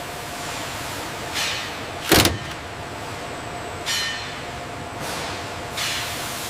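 Steady industrial machinery noise with a faint constant tone, broken by short hissing or clanking bursts, the loudest and sharpest about two seconds in.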